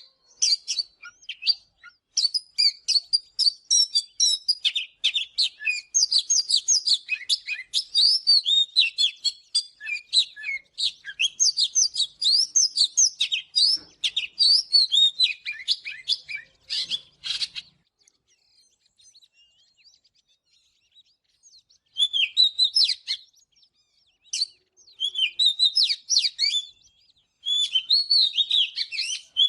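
Oriental magpie-robin singing: a fast, varied run of whistles and chirps, falling quiet for a few seconds past the middle, then picking up again in shorter phrases.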